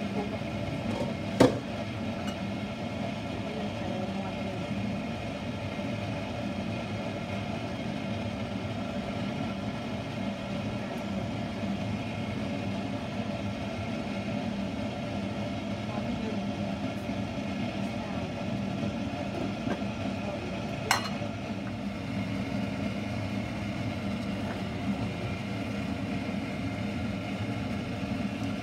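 A large stainless-steel pot of water with a whole chicken in it at a rolling boil, giving a steady bubbling rumble. Two sharp knocks stand out, one about a second and a half in and a louder-looking one about 21 seconds in.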